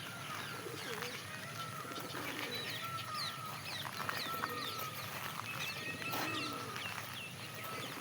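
Several birds chirping and calling over one another, many short whistled notes overlapping throughout.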